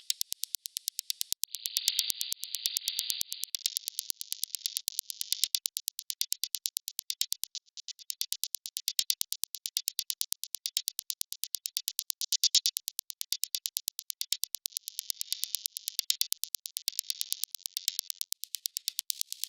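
A fast, even run of high, hissy ticks, about seven a second, like a hi-hat pattern in an electronic beat. Its tone jumps brighter and duller a few times along the way.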